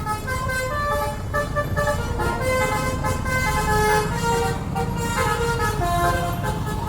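Bus telolet horn, a set of multi-note air-horn trumpets, playing a tune of short held notes one after another over a low engine rumble.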